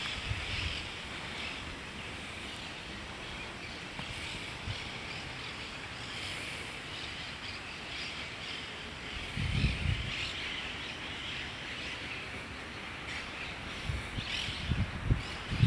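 Outdoor riverbank ambience: a steady high-pitched chorus of wildlife, with brief low rumbles about ten seconds in and again near the end.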